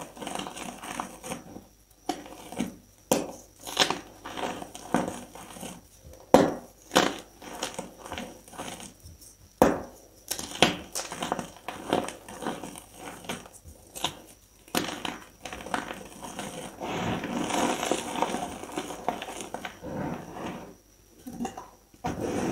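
Hands crushing and crumbling lumps of reformed gym chalk into powder: a run of dry, powdery crunches about once a second, turning into a longer spell of steady crumbling a little past the middle.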